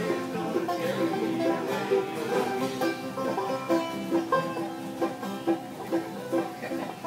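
Acoustic bluegrass band playing an instrumental passage with no singing: rolling five-string banjo, resonator guitar played with a slide bar, and upright bass, with a fiddle coming in near the end.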